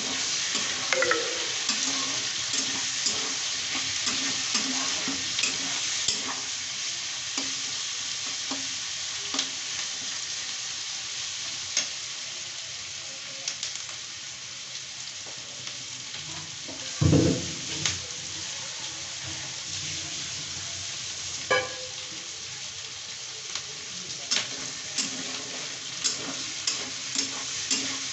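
Chicken frying in a pan with a steady sizzle, while a spoon stirs and scrapes it, giving scattered clicks. A louder knock comes about two-thirds of the way through.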